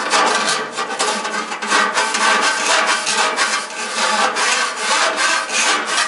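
Brush being worked up and down inside a rusty gas furnace heat exchanger, scraping in quick repeated strokes as it loosens rust and soot from the metal passages.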